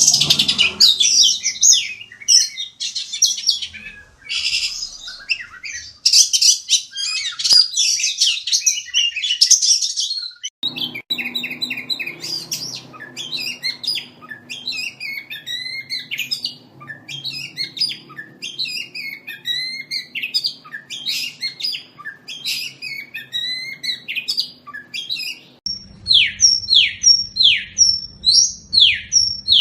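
Oriental magpie-robin (kacer) singing. A fast, dense chattering song gives way after about ten seconds to varied warbled phrases. Near the end come repeated sharply falling whistled notes, about two a second.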